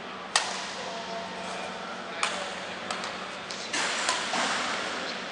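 Badminton rally: a shuttlecock struck back and forth by rackets, several sharp hits a second or so apart, the first the loudest.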